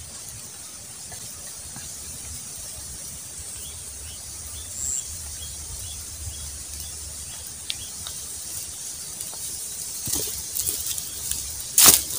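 Quiet outdoor ambience with a steady high hiss, then, from about ten seconds in, footsteps crunching loudly on a thick layer of dry bamboo leaves as a person walks off.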